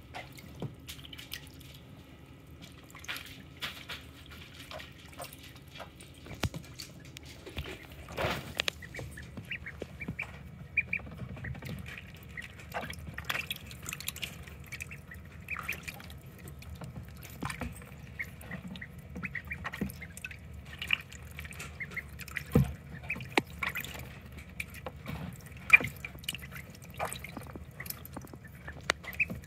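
Ducklings peeping over and over with short high calls while paddling and splashing in shallow water in a plastic tub, with drips and a few louder splashes.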